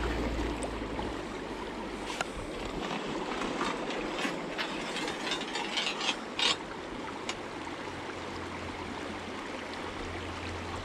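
Beaver-trap drowning cable and its hardware being handled and pulled by gloved hands, giving scattered metallic clicks and rattles, thickest between about four and seven seconds in, over a steady background hiss.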